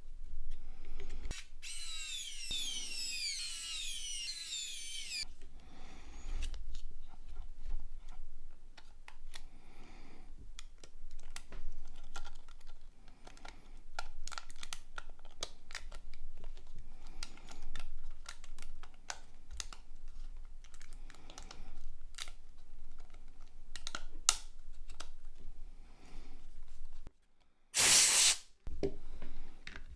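Small plastic clicks and taps from a mobile phone's casing and parts being handled and fitted together. A raspy scraping sound comes about two seconds in, and a short loud noise near the end.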